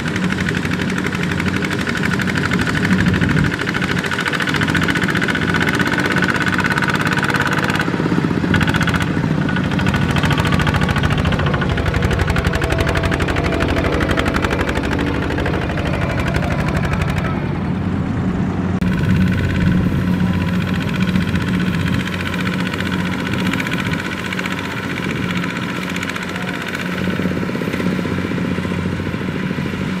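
Single-cylinder diesel engine of a two-wheel walking tractor running steadily under load in mud. The tone of the engine changes about eight seconds in and again at about nineteen seconds.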